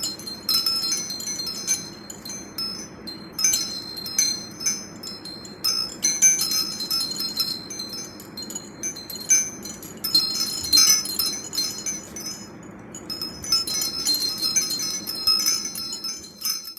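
Metal wind chimes tinkling, struck in irregular clusters of high ringing notes with short lulls between, over a steady low background noise.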